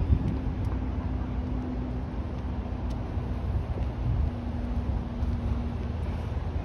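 Steady low rumble of outdoor background noise, with a faint steady hum under it and a few faint ticks.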